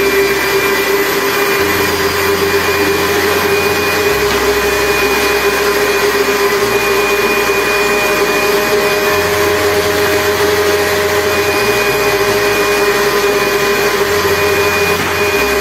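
Electric countertop blender running steadily, blending Oreo cookies, ice cubes and milk into a milkshake: a constant motor whine over a loud whir.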